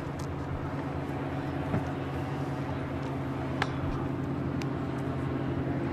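A steady low mechanical hum over open-air background noise, with two sharp clicks about two and three and a half seconds in.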